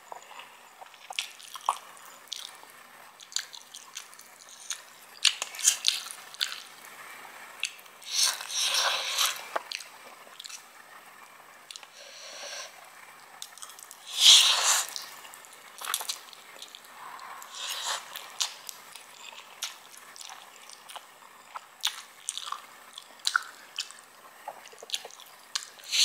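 Slurping and chewing of Samyang fire noodles, with many short wet smacks and clicks of chewing throughout. Two longer slurps stand out, one about eight seconds in and the loudest about fourteen seconds in.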